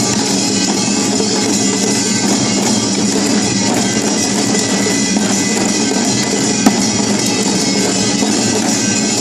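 Samulnori percussion ensemble playing without pause: ringing metal gongs (kkwaenggwari and jing) over janggu and buk drums, with one sharp accent about two-thirds of the way through.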